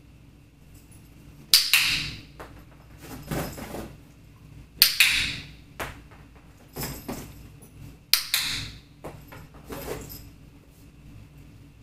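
Dog-training clicker clicked three times, about three seconds apart, marking the puppy's behaviour during clicker training. Softer knocks come between the clicks.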